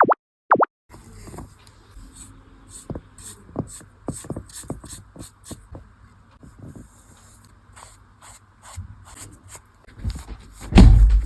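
Two quick cartoon 'bloop' sound effects, then hands handling craft materials: irregular light taps, clicks and scrapes, with a loud low thump near the end.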